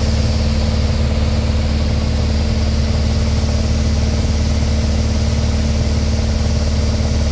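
A Piper light airplane's engine and propeller running at a steady speed, heard from inside the cabin as a constant, loud drone.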